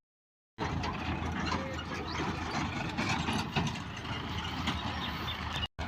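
A heavy machine's diesel engine running steadily. It comes in abruptly about half a second in and cuts off sharply near the end.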